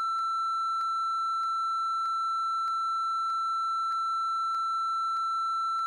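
Censor bleep: one steady high pure tone held unbroken, with faint ticks a little under two a second, blanking out a crude explanation.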